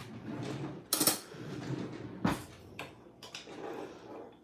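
Metal spoon clinking and scraping against a glass swing-top jar while scooping dry yeast. There are a few sharp clicks, the loudest about a second in and another just after two seconds.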